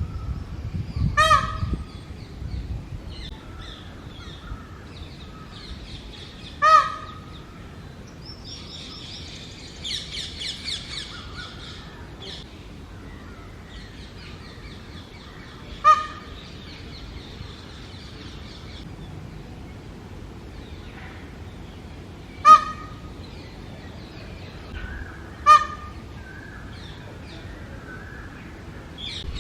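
Male Indian peafowl (peacock) giving five short, loud, honking calls at irregular intervals, a mating-season territorial call. Smaller birds chirp between the calls.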